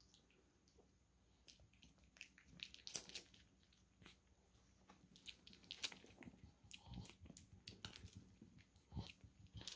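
Faint wet clicks and smacks of two dogs' mouths as a pug puppy and a larger dog play-bite at each other's faces, scattered irregularly and loudest about three seconds in and again near the end.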